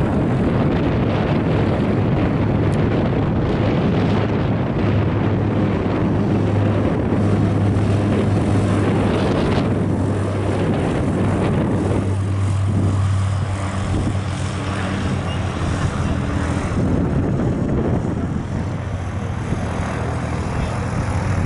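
De Havilland Canada DHC-6 Twin Otter's two PT6A turboprop engines at take-off power through the take-off roll and climb-out: a loud, steady propeller drone with a strong low hum. It fades slightly over the last few seconds as the aircraft climbs away.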